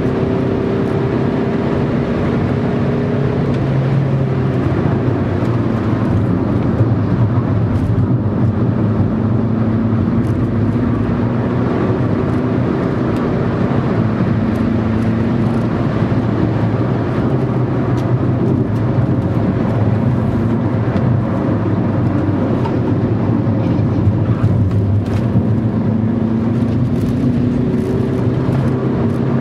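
Car engine heard from inside the cabin while driven at speed on a race circuit, its note climbing slowly, dropping away about three seconds in, then climbing again toward the end, over steady tyre and road noise.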